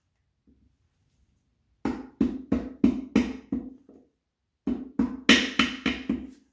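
Rubber mallet tapping a new oil seal into the cast-aluminium case of a Honda YS1 transmission. The taps come in two quick runs, the first starting about two seconds in and a short pause between them, as the seal is driven in flush.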